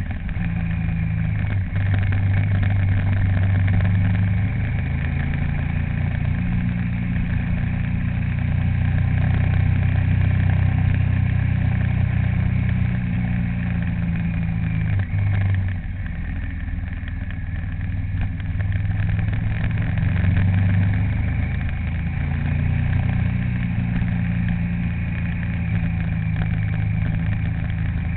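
A vehicle's engine running steadily on the move, its low hum shifting in pitch a couple of times.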